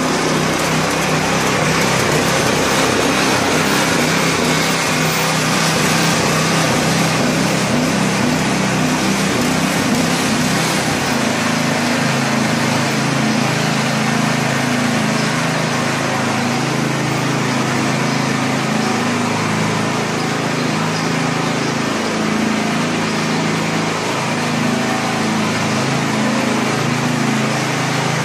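Engine of a motorised hazelnut harvesting machine running steadily. About eleven seconds in the note changes to a different, steadier engine hum.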